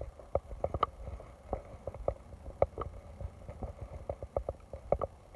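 Irregular light ticks and taps, several a second, over a low rumble: raindrops hitting a waterproof phone case worn on the chest.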